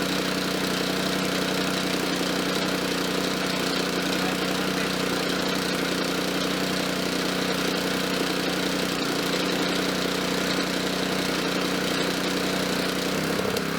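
Small gasoline engine of a portable gas-powered air compressor running steadily, with a slight shift down in pitch near the end.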